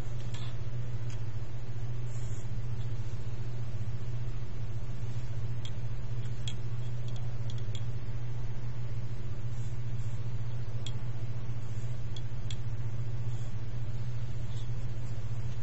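A steady low electrical-sounding hum, with a few faint light clicks scattered through the middle.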